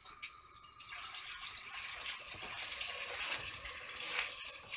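Water pouring steadily into a plastic barrel of tomatoes, topping the pickling brine up to the brim. A faint high chirp repeats about three times a second behind it.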